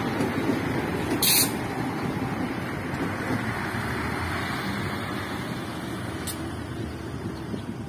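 Diesel multiple unit train running away along the track: a steady rumble of wheels on rail and engines that slowly fades. A brief sharp hiss about a second in is the loudest moment.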